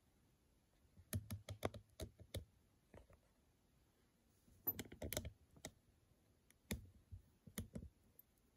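Jewelry pieces and beads clicking lightly against each other as they are handled: scattered clusters of small, sharp clicks about a second in, around the middle, and again toward the end.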